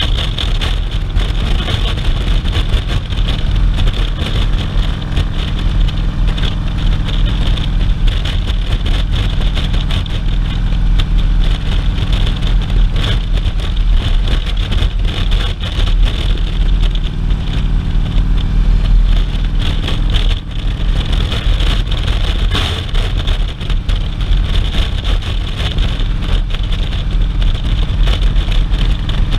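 Touring motorcycle's engine running steadily at road speed, with constant wind rush on the microphone.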